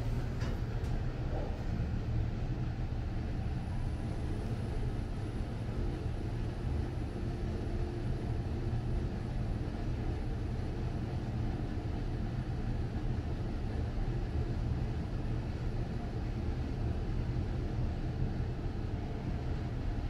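Steady low rumble of a Mitsubishi lift car travelling in its shaft, heard from inside the car.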